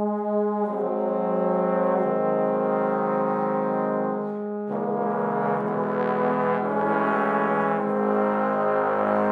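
Intro music of brass instruments holding long, sustained chords, the harmony shifting a couple of times, with a trombone-like low brass sound.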